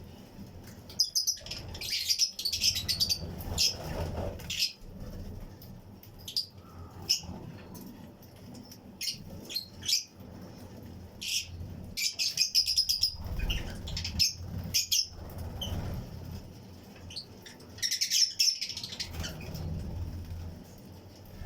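A colony of lovebirds, Fischer's and lutino, chirping: clusters of short, shrill chirps that come and go every few seconds.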